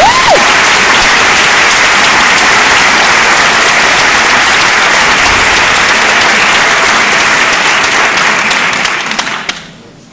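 An audience applauding loudly and steadily, the clapping dying away about nine and a half seconds in.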